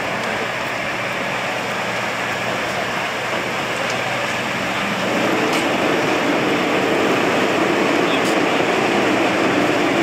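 Steady din of fire truck engines running in the street, with distant voices. About halfway through it grows louder and a steady hum comes in.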